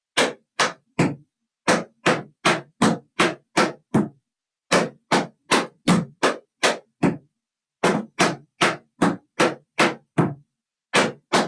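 Metal taps on tap shoes striking a plywood tap board: crisp, evenly spaced taps, about two or three a second, in phrases of seven or eight with brief pauses between.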